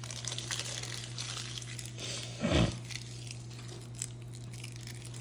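Plastic packaging crinkling as card sleeves are handled. A short low falling sound comes about two and a half seconds in, over a steady low hum.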